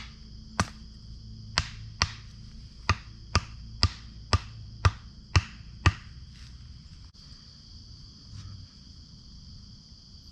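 Axe striking a wooden stake about ten times, roughly two blows a second, then stopping about six seconds in. Crickets chirp steadily behind.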